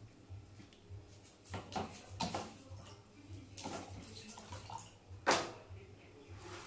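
Liquid splashing and sloshing in a drinking glass as it is stirred or swirled: four or five short watery splashes about a second apart, the loudest a little past five seconds in.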